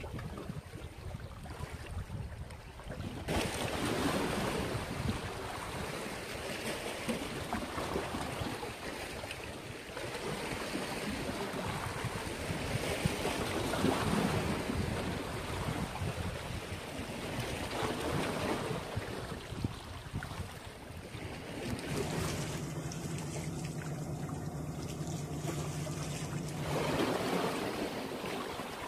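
Sea waves washing and splashing against the boulders of a rock breakwater, swelling and ebbing, with some wind noise on the microphone. A steady low hum joins in for a few seconds near the end.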